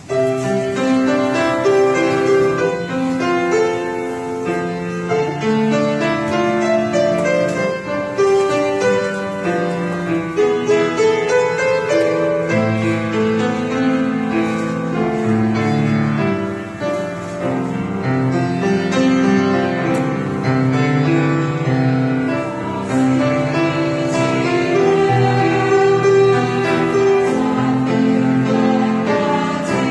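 Instrumental introduction to a choral anthem, led by piano with sustained chords underneath, before any singing comes in.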